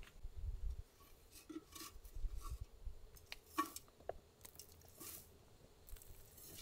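A small garden trowel scooping potting soil into a terracotta pot: a scattering of soft, short crunches and scrapes as the soil drops in.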